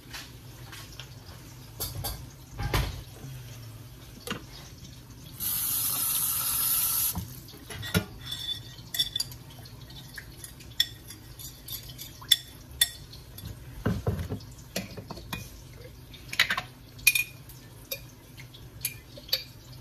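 Kitchenware being handled: a spoon, a glass bowl and metal pot lids clinking and knocking in many short taps. About five and a half seconds in there is a steady rush of noise lasting under two seconds, the loudest part.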